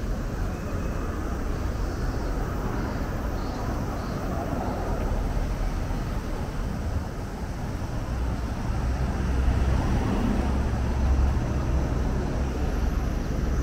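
Road traffic: a steady rumble of cars and engines on a busy avenue, growing somewhat louder about two thirds of the way through.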